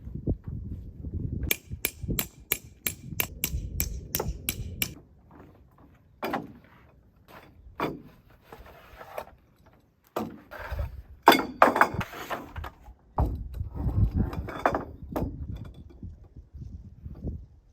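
A run of sharp, evenly spaced strikes, about three a second for some three seconds, like a tent peg being hammered in, followed by scattered knocks and rustling as camping gear is handled.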